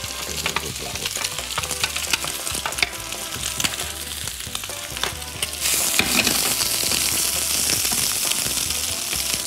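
Pork and vegetables stir-frying in oil in a frying pan over high heat, just after cabbage has gone in: a steady sizzle full of small crackles, with a wooden spatula stirring and scraping the pan. The sizzle grows louder a little past halfway.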